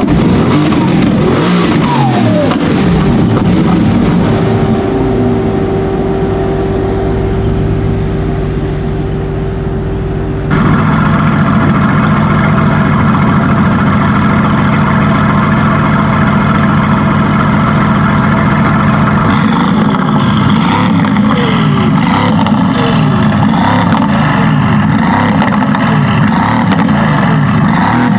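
Mercedes-AMG GT S twin-turbo V8, tuned to 760 hp, running: its note falls in pitch over the first few seconds and settles to a steadier tone, then a sudden cut about ten seconds in brings a louder steady run, with falling pitch sweeps again in the last part.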